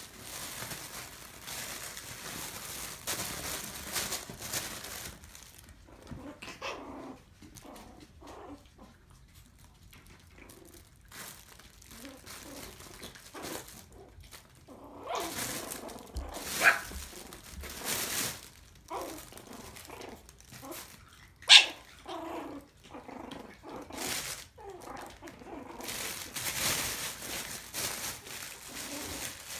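Maltese puppies playing: scuffling, fabric rustling of a nylon play tunnel as they scramble through it, a few low play growls, and two sharp high yips about halfway through.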